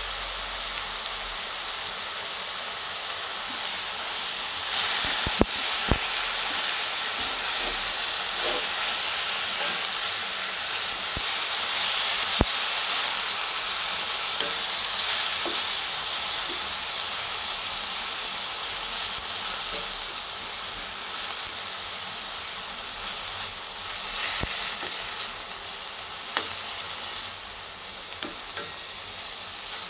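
Chicken pieces frying on onions in a stainless steel pan, a steady sizzle, stirred with a wooden spoon that knocks sharply against the pan a few times. The sizzle grows louder about five seconds in and eases off in the second half.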